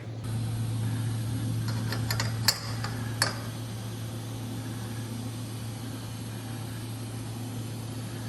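Steady low mechanical hum, with a few sharp clicks or knocks about two to three seconds in.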